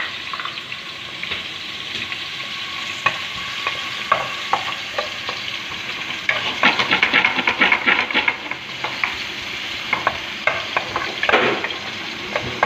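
Chopped onion sizzling in hot oil in a metal pan, stirred with a wooden spatula that scrapes and taps against the pan bottom. The stirring is quickest a little past the middle. The onion is being softened in the oil as the first step of a gravy.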